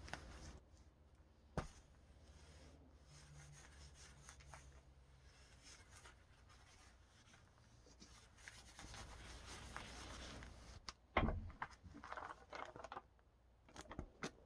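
Faint rubbing and handling of an RC airplane elevator and its plastic film covering. A single click comes about one and a half seconds in, and a short spell of rustling comes near the end.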